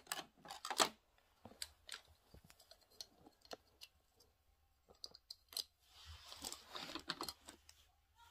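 Small hard plastic toy pieces clicking and knocking as they are handled and fitted onto a plastic playset, in scattered short clicks, with a stretch of rustling about six seconds in.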